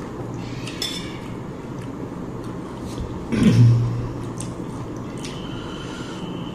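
Soft eating sounds: faint clicks and wet squishes of food being handled and chewed, with a brief louder low hum about three and a half seconds in.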